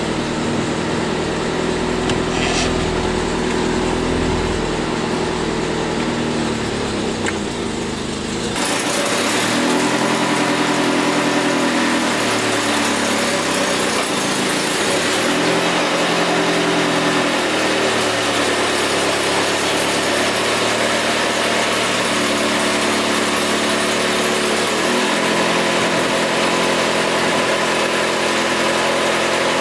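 Alfa Romeo Spider's four-cylinder engine running steadily at low speed. There is an abrupt change in the sound about eight seconds in, after which it is brighter and its pitch wavers slightly now and then.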